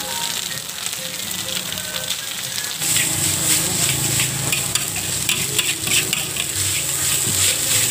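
Rice for nasi goreng frying in a hot wok over an open fire: a steady sizzle while a spatula stirs and tosses it, scraping and clicking against the wok. The sizzle and the spatula clicks grow louder about three seconds in.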